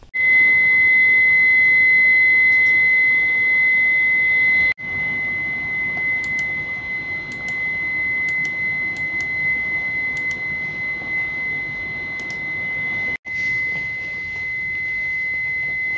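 A steady high-pitched electronic tone over a hiss. It drops out briefly about five seconds in and again about thirteen seconds in, then carries on unchanged.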